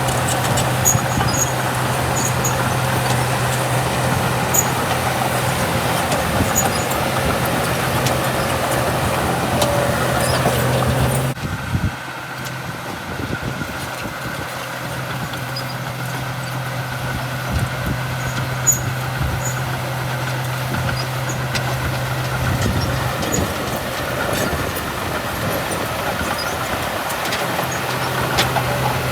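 Diesel engine of a small Komatsu D31P crawler bulldozer running steadily with a low hum, with scattered light clicks. About eleven seconds in the sound drops abruptly and carries on quieter.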